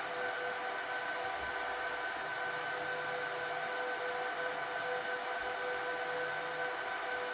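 HP ProLiant DL360p Gen8 1U server's cooling fans running steadily at high speed while the server boots and checks its memory: an even rushing whine with a few fixed tones.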